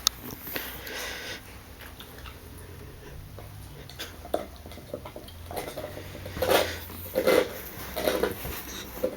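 Boxer dog snoring in its sleep: noisy, rasping breaths, with a run of louder ones about a second apart in the last few seconds.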